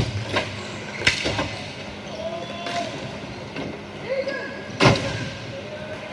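Ball hockey play: sharp clacks of sticks striking the ball, with a louder bang about five seconds in, over players' voices calling out.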